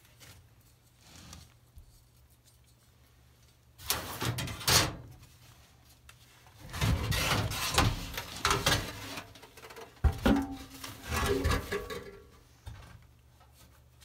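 Sheet metal scraping, rattling and clanking as a gas furnace's heat exchanger assembly is handled and slid out of the furnace cabinet. There is one loud scrape about four seconds in, then a longer run of sliding and knocking with a few sharp metallic knocks in the second half.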